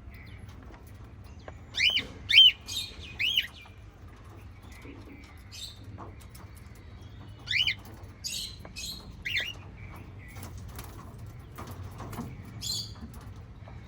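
Small pet parrots chirping: a cluster of loud, short arched chirps about two seconds in and another around eight seconds in, with softer scattered calls between, over a steady low background hum.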